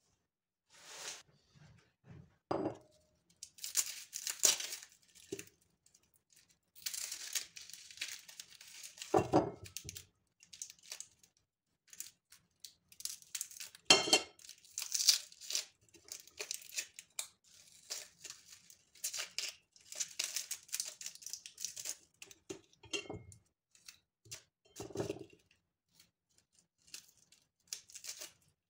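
Packaging rustling, crinkling and tearing in irregular bursts, broken by a few short dull knocks.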